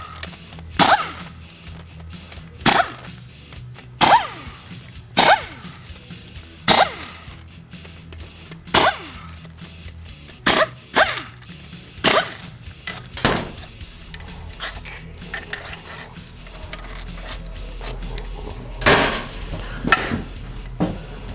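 Air impact wrench firing in short bursts, each with a brief falling spin-down, as it loosens the front pump bolts on a Ford 5R110W transmission. There are about ten bursts a second or two apart, then a pause and one last burst near the end.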